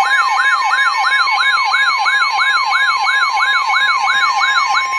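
Emergency alert tone announcing a severe thunderstorm warning: an electronic siren sweep falling in pitch about three times a second, layered over a steady high tone and a faster beeping higher tone. The sweeping stops near the end while the steady tone carries on.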